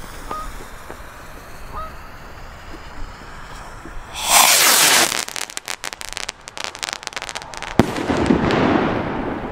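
Funke bomb rocket with a white strobe effect launching about four seconds in with a loud sudden rush, then a quick run of sharp crackles and a single sharp bang near the end.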